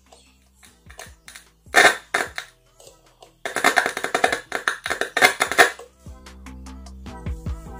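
Music with held instrument tones, drums and percussion strikes.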